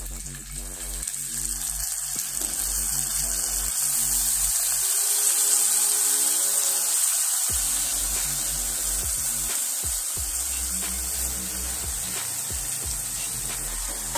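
Chopped tomatoes going into hot oil and spices in a pot, sizzling and frying; the sizzle grows louder over the first few seconds as more tomato goes in, then settles into a steady fry.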